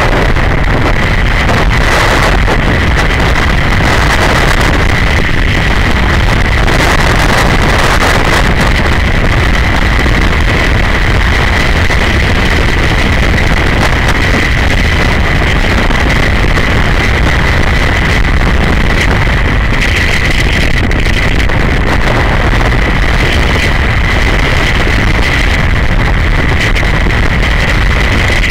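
On-board riding noise from a BMW G 650 GS Sertao's single-cylinder engine at a steady cruise, mixed with loud wind rush on the camera microphone and a steady high whine over it.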